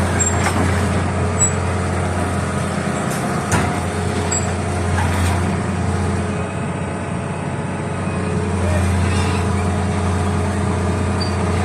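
Heavy diesel engine running steadily, with a few sharp knocks and clanks about a second and a half and three and a half seconds in.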